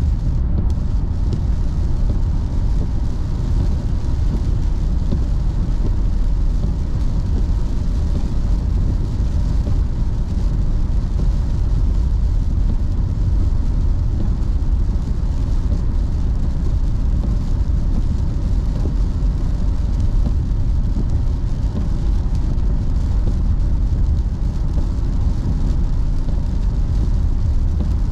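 Steady road noise heard from inside a car at highway speed: the low rumble of tyres on rain-soaked pavement and the engine, holding even throughout.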